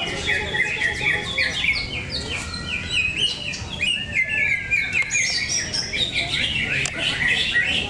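Several caged green leafbirds (cucak ijo) singing at once in a contest: a dense, unbroken stream of quick sliding chirps and whistles, many overlapping.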